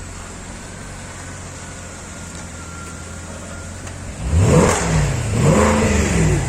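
Car engine revved twice about four seconds in, its pitch climbing and dropping each time, over a steady low engine hum.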